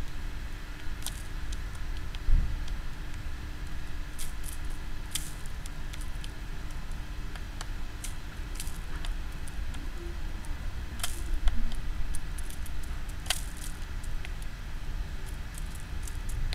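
Eurasian tree sparrow pecking seed from a shallow feeding tray: scattered sharp clicks and taps at irregular intervals, over a low steady rumble, with one dull thump about two seconds in.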